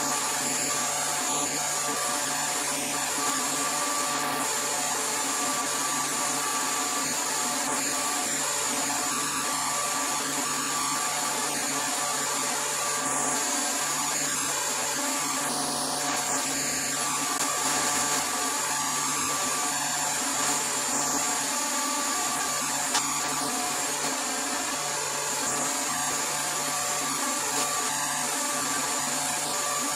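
Vacuum pump running steadily with a constant hum and hiss, holding vacuum on the bagged carbon fiber and fiberglass layup while epoxy resin is drawn through it.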